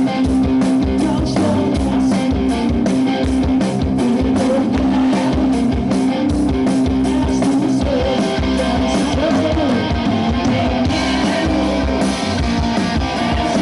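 Live rock band playing loud, amplified electric guitars over a drum kit keeping a steady beat.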